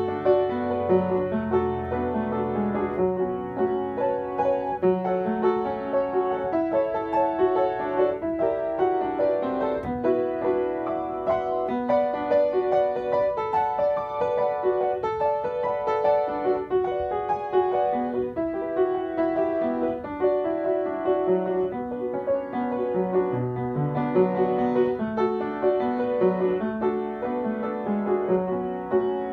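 Solo Yamaha upright piano played continuously: a steady stream of quick notes over a moving bass line.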